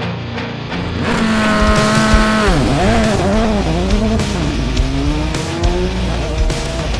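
Volkswagen Polo GTI R5 rally car's turbocharged four-cylinder engine at high revs, coming in about a second in. The pitch holds high, drops steeply, then rises and falls several times through quick throttle and gear changes before climbing again near the end.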